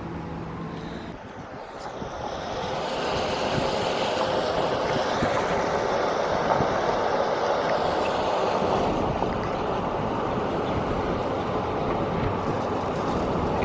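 Car driving, with steady road and tyre noise that builds over the first few seconds as it picks up speed, then holds even.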